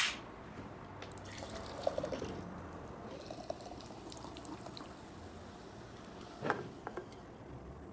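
An aluminium drink can popped open, then poured into a glass mason jar with a faint fizzing trickle. A couple of short knocks come about six and a half seconds in.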